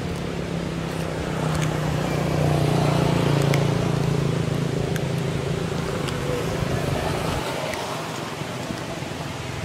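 A motor vehicle's engine passing by, growing louder to a peak about a third of the way in and fading away before the end.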